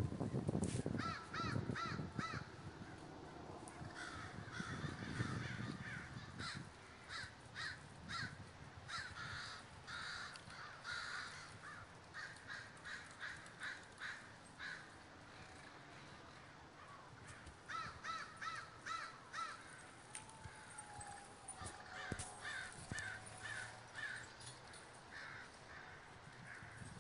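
A large flock of American crows gathering to roost, many birds cawing at once in quick runs of harsh caws. A low rumble sits under the calls in the first few seconds.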